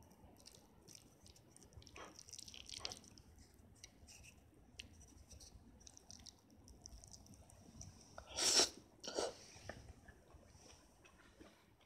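Wooden chopsticks poking and picking through soft cabbage on a plate: small scattered clicks and soft wet rustles, with two louder short scraping noises in quick succession about eight and a half seconds in.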